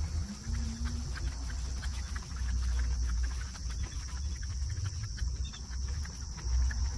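Steady, high-pitched summer insect chorus over a low, uneven rumble.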